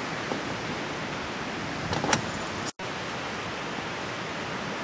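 Strong thunderstorm gust-front wind blowing steadily, an even rushing noise, with a brief louder gust about two seconds in. The sound cuts out for an instant just before three seconds.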